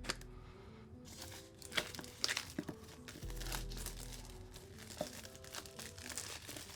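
Screen protector packaging being pried and torn open: crinkling and tearing with several sharp snaps and scrapes, the loudest about two seconds in. Background music with a steady bass plays underneath.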